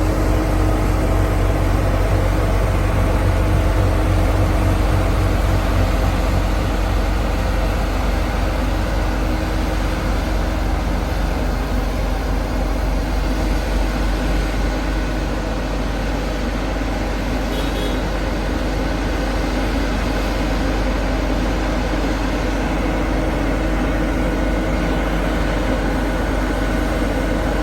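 An engine running steadily at a constant speed, with a low, even hum that eases a little about halfway through.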